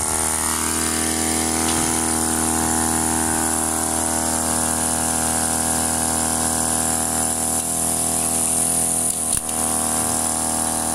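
Home-built replica of Tesla's mechanical oscillator, a steel air-driven piston on a magnetic spring, running on low-pressure compressed air: a steady pitched hum with many evenly spaced tones and a high air hiss over it. It starts at once as the air is turned up and falters briefly about nine seconds in.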